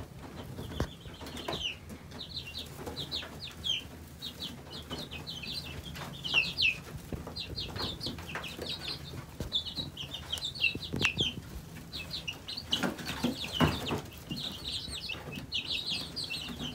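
A flock of young chicks peeping: many short, high, falling chirps in overlapping runs. A few knocks and rustles of movement come about three-quarters of the way through.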